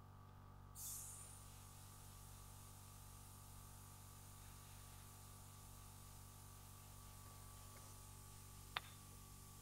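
Near silence: a steady low electrical hum and faint hiss of room tone, broken by one short sharp click near the end.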